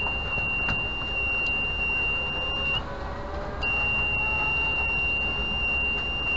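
Inverter's alarm buzzer giving a long, steady, high-pitched beep that cuts off a little under three seconds in and then starts again about a second later.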